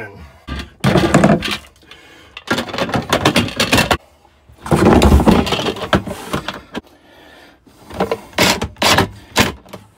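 Clattering and scraping as the cover is fitted onto a small breaker sub panel's box and handled. It ends in a quick run of sharp clicks and knocks near the end as the cover is fastened.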